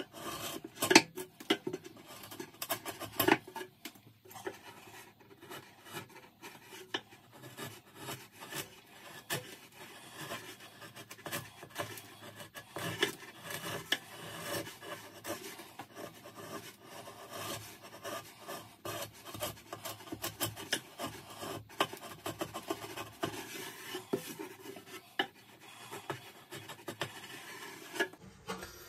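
Wood chisel scraping and paring along the front edge of a wooden shelf in many short, irregular strokes, shaving off a raised lip.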